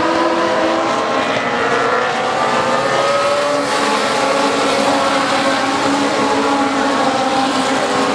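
A pack of Legends race cars running together, several Yamaha motorcycle engines at once, their pitches sliding up and down as the drivers lift and accelerate.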